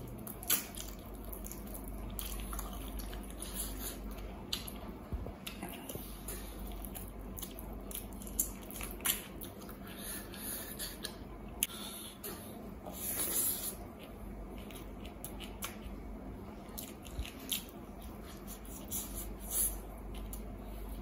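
Close-miked eating of mutton curry and rice by hand: wet chewing, lip smacks and squishes, with scattered sharp clicks, over a steady low hum.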